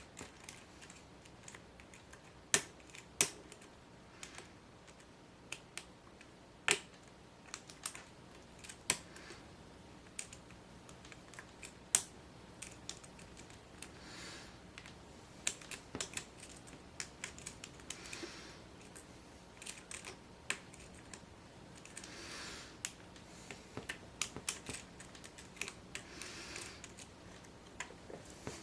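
Lock pick and tension wrench working the pins of a Grainger 1XRV5 padlock with spool security pins: irregular sharp metallic clicks with soft scraping between them.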